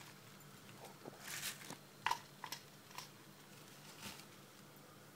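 Light clicks and taps of stainless steel vessels being handled as ingredients go into a mixer-grinder jar, the sharpest click about two seconds in, with a brief rustle a little after one second.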